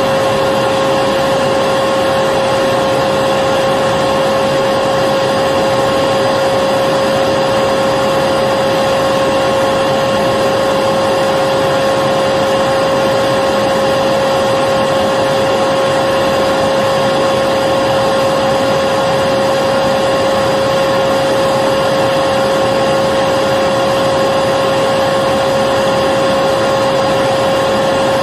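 Vacuum cleaner running steadily: a constant whooshing motor noise with a steady whine on top.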